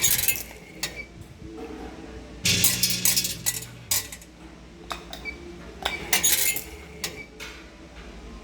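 Automatic weighing machine dosing small portions of dried lotus seeds. Hard seeds rattle and clink over a low buzz from its feeder in bursts of about a second, roughly every three seconds, with single clicks between.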